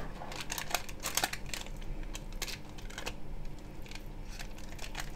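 A utensil scraping and tapping against a glass baking dish while spreading thick batter: a string of short, irregular scrapes and taps.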